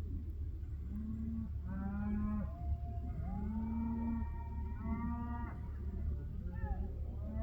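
Cattle mooing, about five calls in a row, one drawn out about three seconds in, over a steady low rumble.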